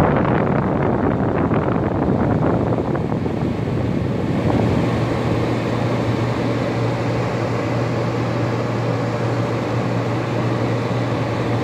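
LG room air conditioner running, its fan blowing air steadily, with a steady low hum joining about five seconds in.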